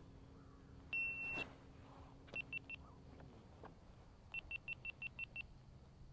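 Electronic beeps from a GoPro camera as its battery dies and it shuts down: one half-second beep, then three short beeps, then a run of seven quick beeps, all on the same high pitch, over a faint steady hum.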